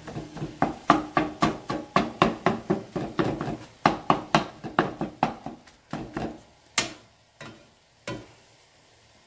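Plastic spatula chopping ground beef in a non-stick frying pan, tapping against the pan about three to four times a second, then slowing to a few separate knocks before stopping.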